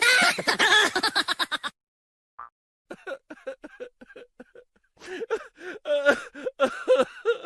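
Comic laughter sound effects: rapid giggling that stops about a second and a half in, a short silence, then chuckling in short, evenly repeated pulses.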